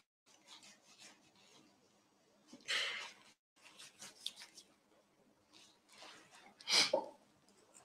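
Quiet room tone broken by two short breathy sounds from a woman, the first about three seconds in and a louder, sharper one near the end.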